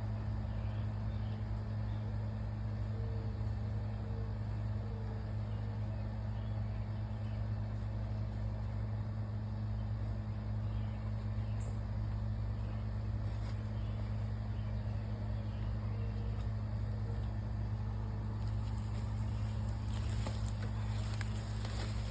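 A steady low mechanical hum, like a motor running. Near the end there is rustling and scraping, with some scratchy crackle.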